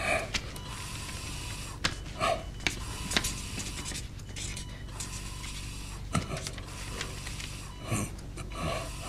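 An elderly hospital patient on oxygen tubing breathes with effort, giving a few short gasps and grunts, with soft rustling and scratching in between.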